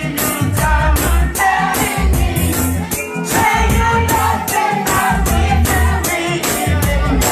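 Reggae music played loud through a sound system, with a heavy pulsing bass line and steady percussion hits.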